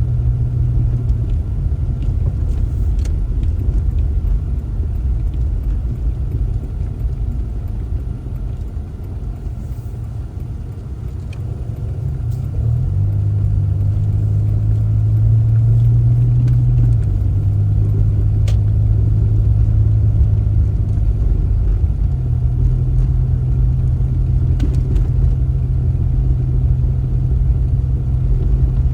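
Car running, a steady low engine and road rumble. Its hum shifts pitch a few times and dips in loudness in the middle before rising again.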